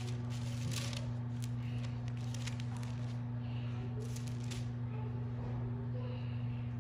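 Pages of a Bible being leafed through, rustling in three or four short bursts, over a steady low electrical hum.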